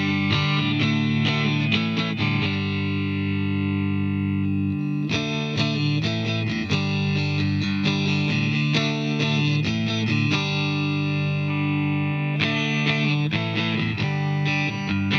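Dean Avalanche guitar played: a run of picked notes and chords, with a chord left ringing for a couple of seconds twice.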